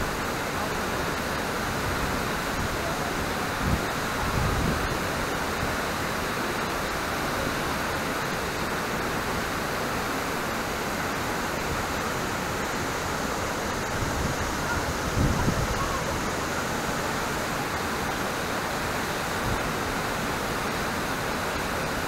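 Wachirathan Waterfall's steady rush of heavy falling water, broken a few times by brief low bumps.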